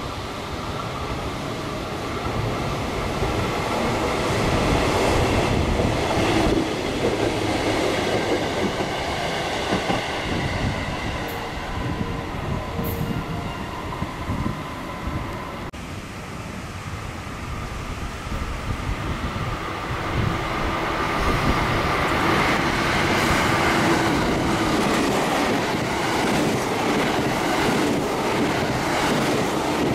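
JR Central electric commuter trains running through a station. The rumble of wheels on rails swells as one train nears and passes, then fades. After an abrupt cut, a second train builds up and passes close by at speed near the end.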